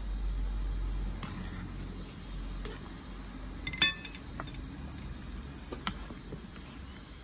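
A large pot of meat on the bone boiling hard on a gas ring, with a steady low rumble underneath. A metal skimmer clinks against the pot as the foam is lifted off: one sharp clink about four seconds in, then a few lighter taps.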